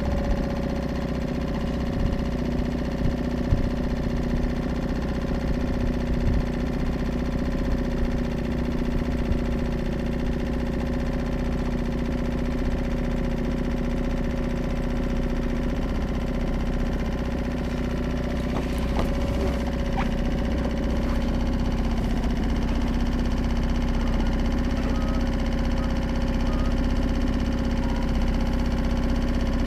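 Suzuki DF 2.5 single-cylinder four-stroke outboard running at a steady idle in neutral shortly after starting, its pitch even throughout.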